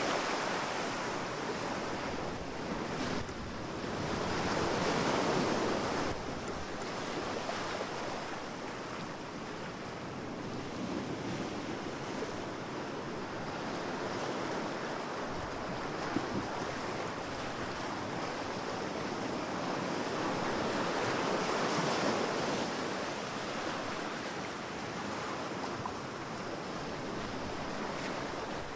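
Sea waves surging and washing on a beach, a steady rush that swells and fades in slow surges every several seconds.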